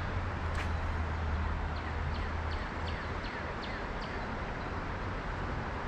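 Creekside ambience: a steady rushing hiss with a low rumble that fades out about two and a half seconds in, and a run of short, falling bird chirps.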